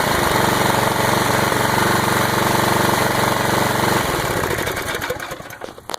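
Gasoline pressure washer engine running steadily, then shut off about four seconds in, slowing and coasting to a stop near the end.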